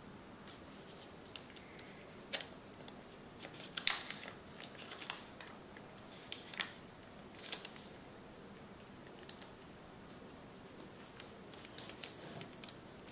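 A sheet of origami paper crinkling and crackling under the fingers as it is folded and pressed along its creases, in irregular short crackles, the loudest about four seconds in.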